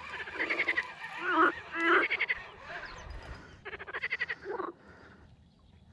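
Frogs croaking: a run of rapid, rattling pulsed calls one after another, the loudest about two seconds in.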